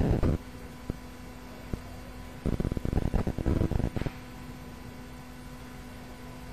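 Steady electrical hum in the recording, with a short burst of crackling noise at the start and a denser run of rapid crackling from about two and a half to four seconds in.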